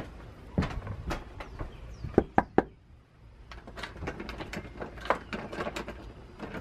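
Three quick, loud knocks on a wooden front door about two seconds in, after a few footsteps, followed by softer scattered clicks and rustling.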